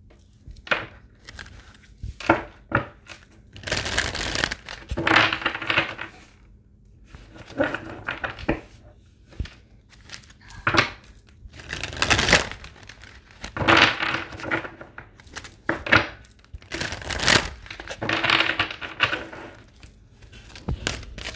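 A deck of tarot cards shuffled by hand in a string of rustling bursts, each a second or two long, with a few short clicks in between.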